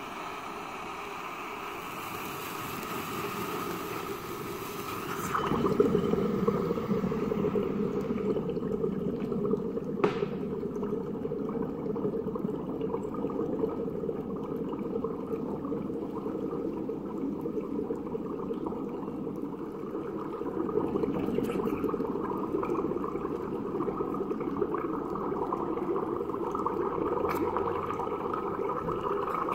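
Sparklers hissing, then from about five seconds in burning under water in a glass beaker: a steady, louder bubbling and gurgling as the water is churned and gas bubbles rise through it.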